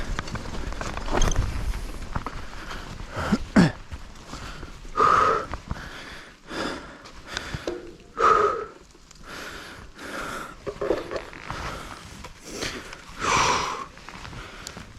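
A mountain biker breathing hard, with loud noisy exhales every second or two over the rumble of the ride. A sharp click comes about three and a half seconds in.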